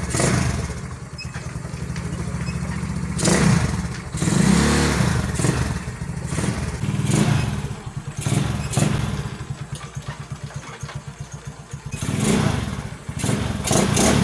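Small motor scooter engine idling and revved in short throttle blips several times, running on freshly changed engine oil and gear oil.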